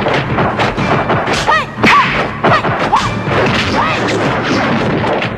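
Film fight sound effects: a quick run of punch and kick whacks and thuds with swishes of moving limbs, and short shouts among them. The blows fall several times a second.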